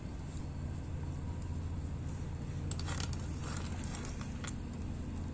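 Steady low hum with a few faint light clicks, while chopped dry fruits are sprinkled over rasmalai.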